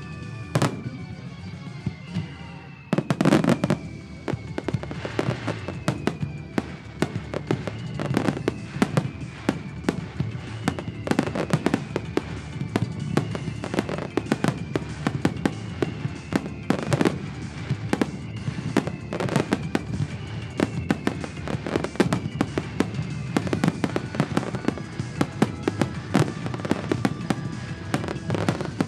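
A dense barrage of exploding aerial firework shells with crackling stars, the loudest bangs about three seconds in and again around seventeen. Underneath runs music with a falling tone that repeats every two and a half seconds or so.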